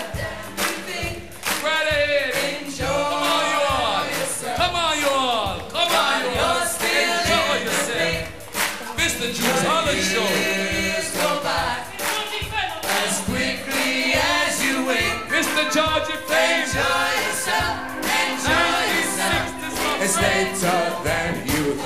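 Live ska band music on a steady beat, with several voices singing together over it.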